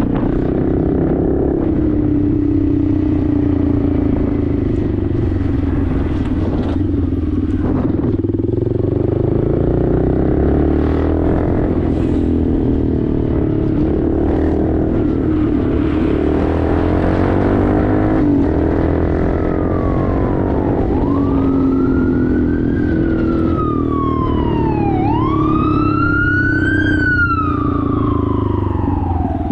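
Honda Grom's 125 cc single-cylinder engine, fitted with a Toce exhaust, running while riding, its pitch drifting up and down with the throttle. From about two-thirds in, an emergency-vehicle siren wails over it, rising and falling in slow sweeps.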